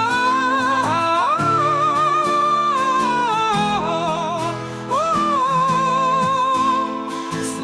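Background music: a slow melody of long, wavering held notes over sustained low chords.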